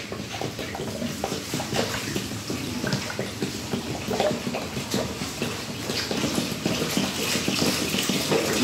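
Vichy carbonated mineral water poured from a bottle into a urinal bowl: a continuous stream of water splashing onto the porcelain.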